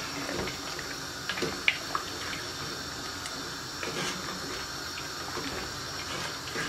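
A spoon stirring a stainless steel pot of oxtail stew: liquid sloshing, with a few light clicks of the spoon against the pot.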